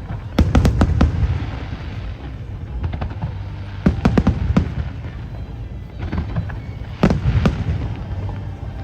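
Aerial fireworks display: clusters of sharp bangs and crackles about every three seconds, over a continuous low rumble of booms.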